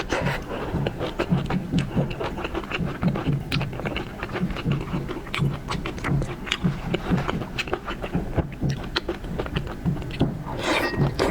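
Close-miked seafood mukbang eating sounds: rhythmic chewing with many sharp, wet mouth clicks.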